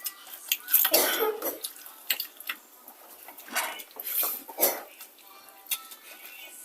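People eating a spicy chicken-and-rice meal: a cough about a second in, then several short breathy sounds, with light clinks of utensils on plates.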